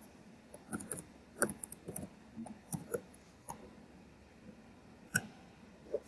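Computer keyboard typing: a quick irregular run of keystrokes as a word is typed, then after a short pause a single louder key click, and another just before the end.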